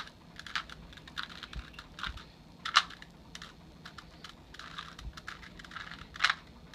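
Plastic Rubik's Cube layers being turned by hand, an uneven run of short clicks and clacks.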